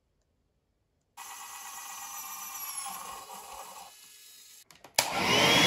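A small electric motor whirring with a faint whine from about a second in, dropping in level near four seconds; after a sharp click near five seconds it runs again much louder with a steady high whine.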